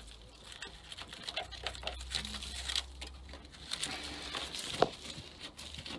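A hand tool scraping and scratching at mud and debris packed into a wooden boat's bilge, with irregular small clicks and rustles. One sharper knock comes about five seconds in.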